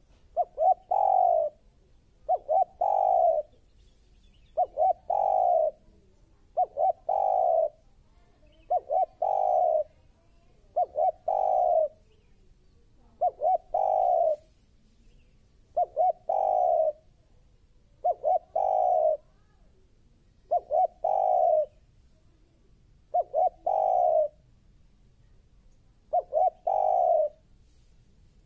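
Spotted dove cooing: about twelve phrases, roughly one every two seconds, each two or three quick short notes followed by a longer, fuller coo.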